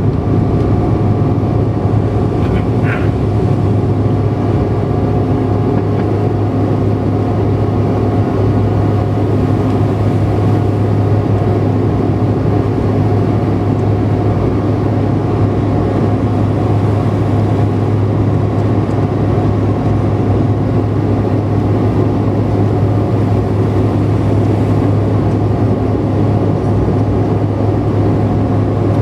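Steady cabin drone of the Bombardier CRJ900 in flight: its rear-mounted General Electric CF34 turbofans and the airflow make a loud, even hum with several steady tones. A brief faint high squeak comes about three seconds in.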